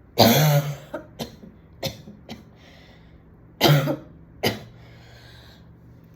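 A woman coughing in repeated fits after smoking a cigarette. There is a hard cough just after the start and another about three and a half seconds in, with lighter coughs between and short quiet breaths in the gaps.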